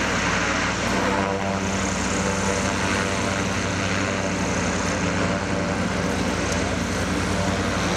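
Zeppelin NT airship's propeller engines running steadily, a constant drone with no rise or fall.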